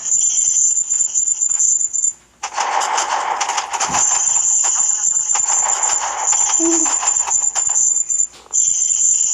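Many layered sound effects playing at once: a steady high-pitched electronic tone that cuts out about two seconds in, and a noisy, crackling jumble full of clicks from about two and a half seconds to about eight seconds, after which the high tone comes back.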